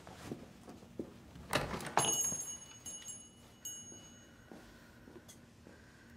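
A door knocking open about a second and a half in, and a small door bell jingling and ringing on for about two and a half seconds, struck again partway through.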